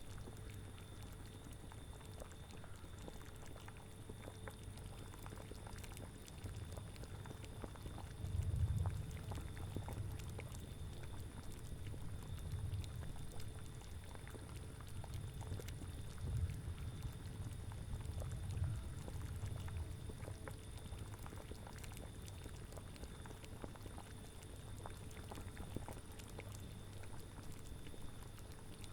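Cauldron boiling: thick liquid bubbling and gurgling low down, swelling louder several times.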